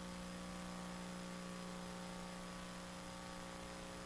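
Steady electrical mains hum with a faint even hiss behind it, from the microphone and sound system.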